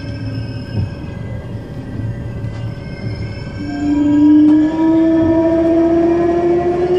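Train horn sounding one long blast from about three and a half seconds in, its pitch creeping slightly upward, over the steady rumble of a train running on the rails. Before the horn, thin high squealing tones sound.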